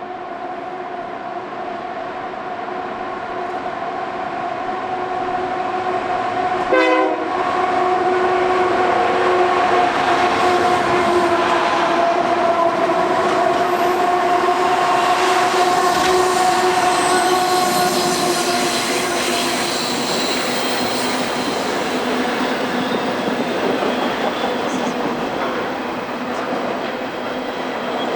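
BNSF freight locomotive horn held as one long chord, stopping about two-thirds of the way through. The roar and clatter of the passing train's wheels on the rails then carries on.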